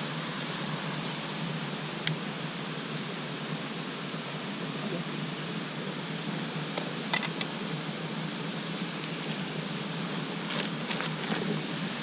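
Steady rush of falling water from a waterfall, an even hiss, with a couple of faint clicks.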